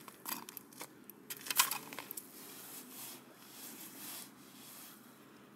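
Ice-fishing tip-up being lifted out of its hole and laid on the ice: a handful of light clinks and knocks in the first two seconds, then faint scuffing as the line is hauled in by hand.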